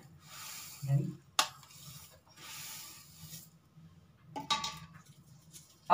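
Roasted sesame seeds pouring and sliding off a plate into a bowl, pushed along by a metal spoon: two soft hissing rushes of seeds, with a sharp click of the spoon on the dish about a second and a half in and a few small clinks near the end.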